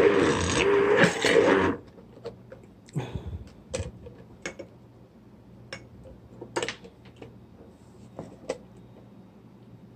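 Stick blender's motor whirring as it blends ice cream and milk in a glass mug, its pitch wavering, then cutting off about two seconds in. A few light clicks and knocks follow as the glass mug is handled.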